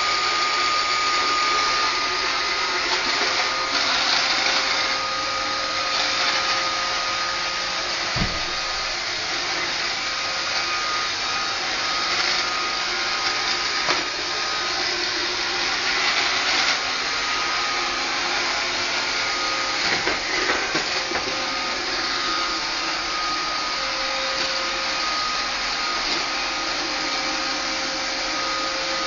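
Roomba 560 robot vacuum running: a steady whir from its motors and brushes, with a thin steady whine over it. There is a brief low thump about eight seconds in.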